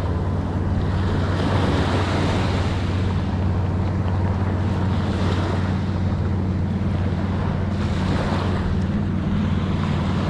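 Small waves breaking and washing up onto a sandy beach, swelling every couple of seconds, with wind buffeting the microphone and a steady low hum underneath.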